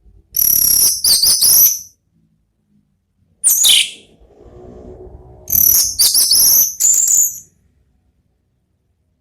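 Orange-headed thrush singing its clear, loud song of high whistled phrases in three bursts, the middle one a quick falling whistle.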